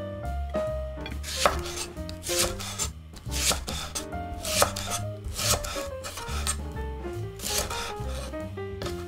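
Chef's knife slicing through a green onion stalk onto a wooden cutting board: about six crisp cuts, roughly a second apart, each a crunch ending in a tap on the board. Light background music plays underneath.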